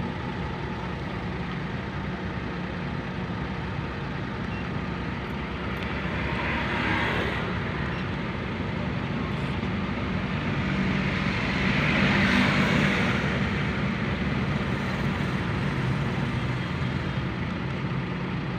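Toyota Wigo's engine running steadily while a cylinder 2 misfire (code P0302) is stored, with two brief swells in the sound.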